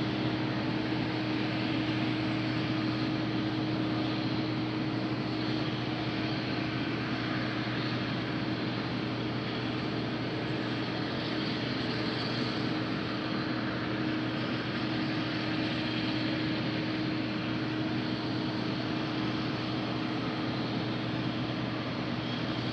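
Combine harvester running at a steady working speed: a constant engine and machinery drone with a steady low hum.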